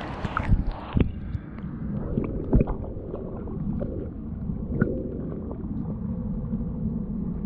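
Muffled underwater sound from a camera dipped beneath the surface: a steady low rumble with a few knocks and gurgles from hand and water movement, the loudest knock about two and a half seconds in.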